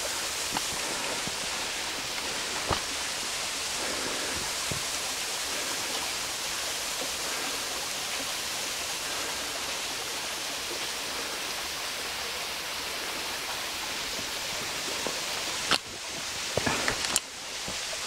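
Steady hiss of water still running under a mostly frozen waterfall. A few sharp knocks break it, two of them near the end.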